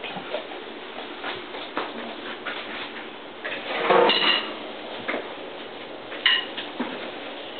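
Shuffling, knocks and clicks as a drummer sits down on a drum throne and settles at a drum kit before playing, with a louder creaking rustle as he sits about four seconds in and a sharp click a couple of seconds later.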